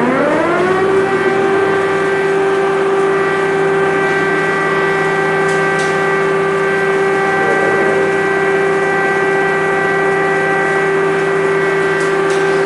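Civil defense warning siren, its pitch rising over the first second and then holding one steady wail.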